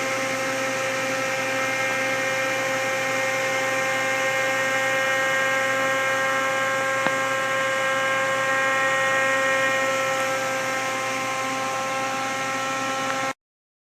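Cooling fans in the electrical cabinet of a 1997 Mazak Quick Turn 20 CNC lathe running steadily, a constant hum with several high whining tones. It cuts off suddenly near the end.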